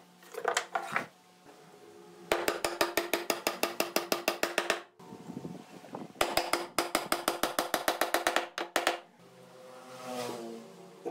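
Two runs of rapid, evenly spaced knocks, about eight a second, each lasting two to three seconds.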